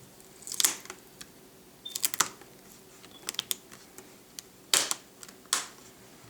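Plastic retaining clips of an HP Pavilion DV6 laptop's screen bezel clicking loose as the bezel is pried away along the top edge. The sharp clicks come singly and in quick clusters, about a second or so apart.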